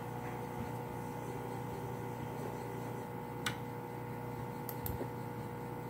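Steady electrical hum made of several constant tones over faint hiss, with a short click about three and a half seconds in and two more close together near five seconds.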